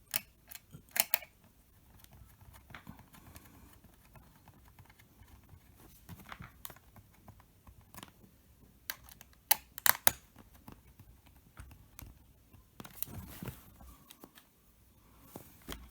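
Scattered light clicks and taps of a small screwdriver and plastic laptop parts being handled as the laptop's bottom panel goes back on, with a few sharper clicks about a second in and again near ten seconds.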